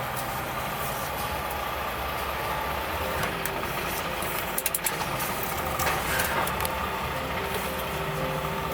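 Truck engine running steadily, with a quick run of three or four clicks about halfway through.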